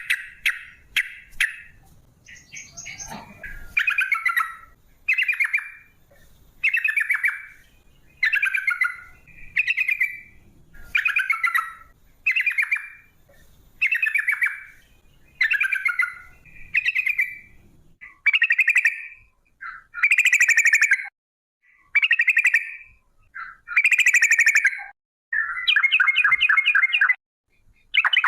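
Yellow-vented bulbul (trucukan) singing: short bubbly warbled phrases repeated about once a second, then longer rapid rattling trills near the end.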